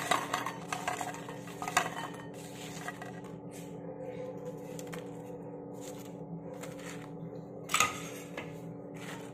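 Crisp-fried idli cubes being dropped by hand into a cut-glass bowl: light clicks and taps against the glass, busiest in the first two seconds, with one sharper knock near the end.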